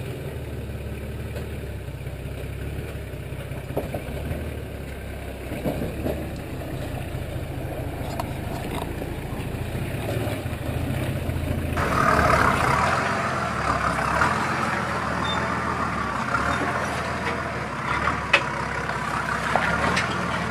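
Four-wheel-drive vehicle engine running at low revs as it crawls over rocks. About twelve seconds in, the sound switches abruptly to a louder, hissier mix.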